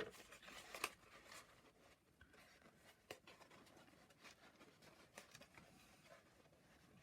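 Faint rustling and a few light ticks of card pieces being handled as tabs are fitted and tucked together.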